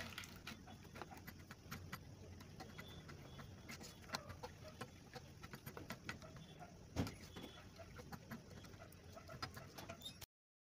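Wooden spoon stirring white chocolate chips into a warm mixture in a stainless steel saucepan: faint, scattered taps and scrapes of the spoon against the pan, with a sharper knock about seven seconds in. The sound cuts off abruptly shortly before the end.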